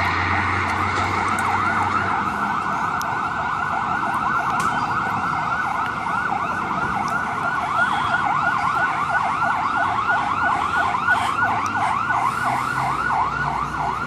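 Fire engine's electronic siren in a fast yelp, about four rising-and-falling sweeps a second.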